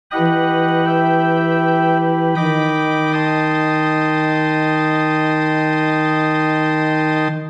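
MIDI-rendered solo organ playing loud, sustained full chords. The chord changes about two and a half seconds in and again a moment later, and is released near the end.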